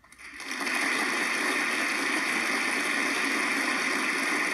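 Audience applauding: steady clapping that swells up over about half a second and then holds even.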